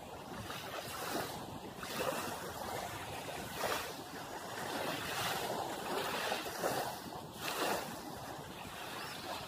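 Small sea waves washing onto a sandy beach, swelling and falling away in irregular surges every second or two over a steady hiss of water.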